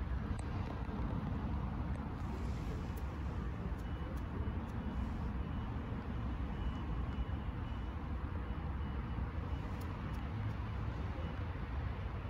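Steady low rumble of a running motor vehicle, with the faint, repeated high beeps of a reversing alarm starting about four seconds in.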